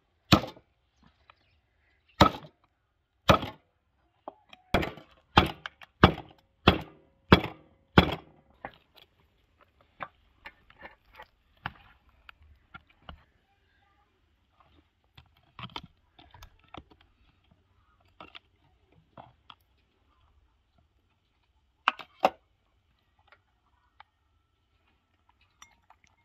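Cleaver chopping boiled beef head meat and bone on a metal tray: a run of about nine sharp chops in the first eight seconds, then lighter knocks and handling, and two more chops later on.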